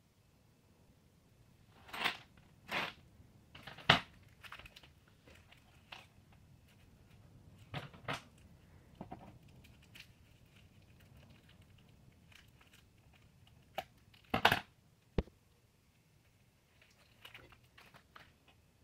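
Scissors snipping thin plastic: a handful of sharp cuts at irregular intervals, with quieter clicks and handling rustle between them.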